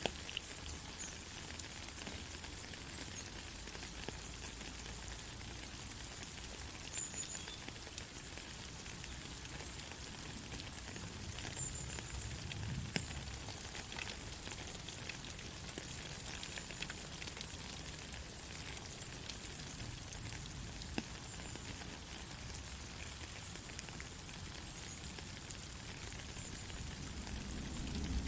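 Steady rain falling, a continuous hiss with scattered individual drops tapping.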